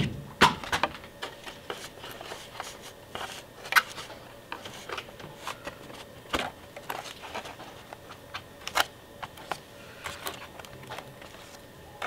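Scattered light clicks and taps of paper-faced foam board being set in place and pressed down by hand onto a hot-glued fuselage.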